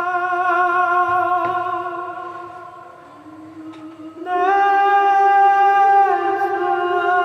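Background music of long held notes, sung without words, in a slow melody. The first note fades away, and a louder new note swells in about four seconds in.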